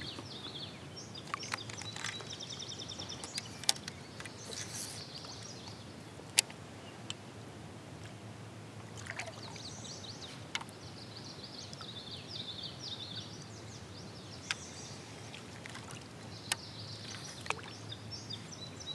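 Water sloshing and trickling off a kayak paddle, with scattered sharp knocks and clicks. Birds chirp in short high trills several times in the background.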